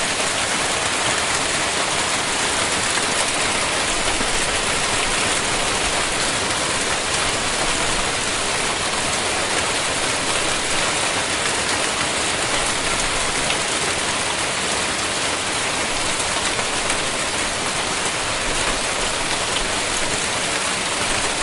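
Hailstorm with heavy rain pelting down, a steady, dense hiss of countless small impacts that keeps an even level throughout.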